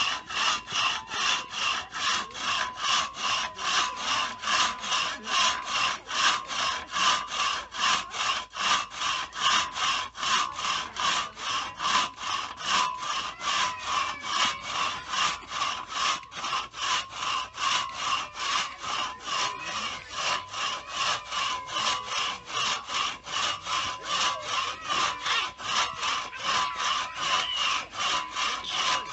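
Hand saw cutting through firewood in a steady back-and-forth rhythm of about two to three rasping strokes a second.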